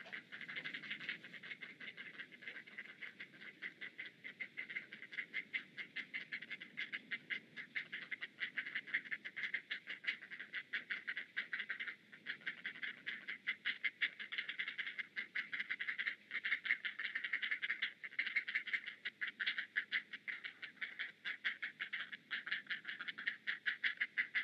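Great blue heron nestlings giving a rapid, continuous clacking begging call as a parent arrives at the nest to feed them.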